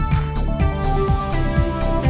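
Electronic background music with a steady beat of about two thumps a second under held synth tones.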